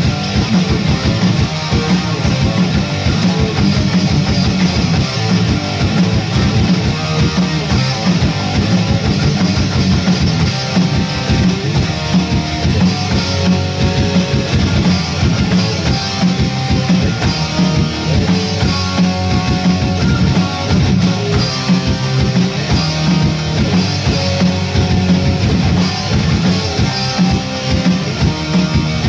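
Heavy metal song with loud electric guitars and a drum kit.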